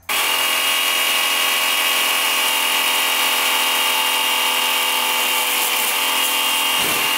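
Einhell cordless electric chainsaw running at full speed with a steady high whine from motor and chain, its chain cutting into a whole pineapple.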